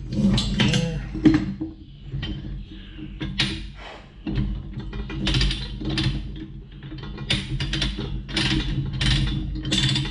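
Chain ratchet binder being cranked tight, its pawl clicking in quick runs of strokes from about three seconds in, over a steady low hum.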